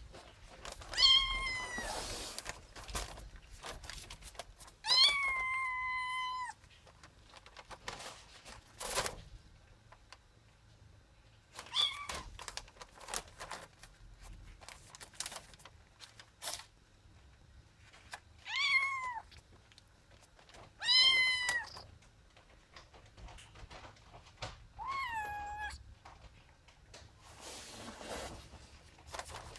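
Kitten meowing repeatedly: about six high-pitched meows a few seconds apart, some drawn out and several dropping in pitch at the end.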